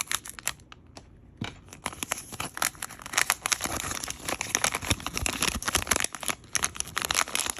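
Thin plastic wrapper crinkling and tearing as a tiny collectible book is unwrapped by hand: a quieter first second, then a dense run of crackles.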